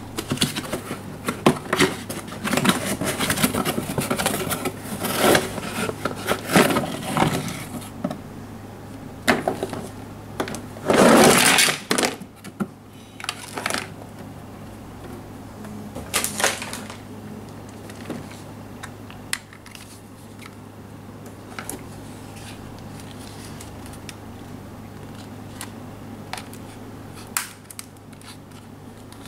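Cardboard box and plastic packaging handled as a toy airliner is unboxed: crinkling and rustling for the first several seconds, a louder rustling burst about eleven seconds in and another near sixteen, then scattered clicks and knocks of the hard plastic toy being handled. A faint steady low hum runs underneath.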